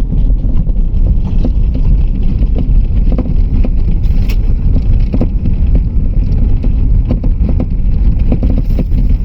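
Loud low rumble of a Volkswagen Saveiro pickup driving over a rough dirt road, heard from inside the cab, with frequent short knocks and rattles. The knocking comes from a loose windshield that has come unstuck from its frame.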